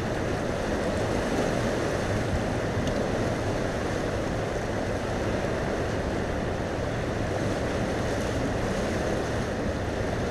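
Steady rush of fast river water in a dam's tailwater, with wind buffeting the microphone.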